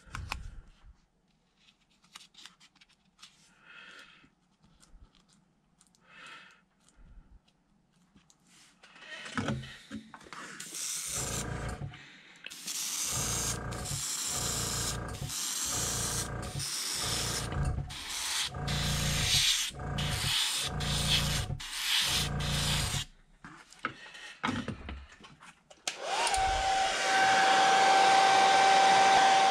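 Gravity-feed airbrush spraying paint in a series of short bursts of hissing air, about a dozen in a row. Near the end a hair dryer switches on and blows steadily with a constant tone, drying the fresh paint.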